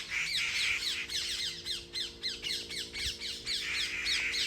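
A flock of parrots squawking, a dense chorus of short, sharp falling screeches overlapping several times a second.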